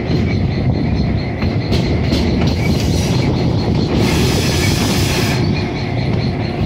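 Ex-Army GP7 diesel locomotive working under load, its engine and wheels on the rails making a heavy, steady rumble as heard from the car behind it. A hissing rush of noise rises about four seconds in and stops after about a second and a half.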